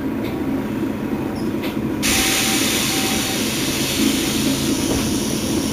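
Mercedes-Benz Citaro city bus standing at idle with a steady engine hum. About two seconds in, a loud, even hiss starts abruptly and carries on over the hum.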